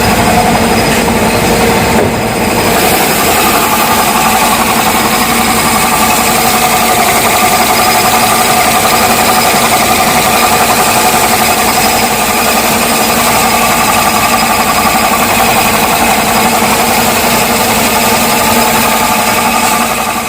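Kia Picanto's engine idling with the air conditioning on, its AC compressor running with a loud, steady growling (ngorok) noise; the compressor is noisy yet the AC still blows cold.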